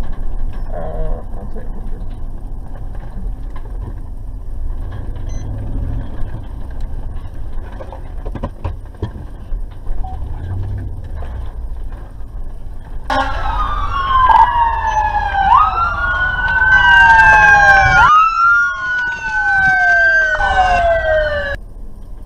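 Low, steady vehicle engine and road rumble inside the cab. About two-thirds of the way through, emergency sirens start, several wailing up and down over each other, and cut off suddenly near the end.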